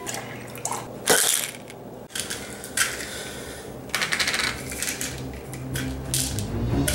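Small white plastic bottle being handled and twisted in the hands, giving several short bursts of rattling and clicking.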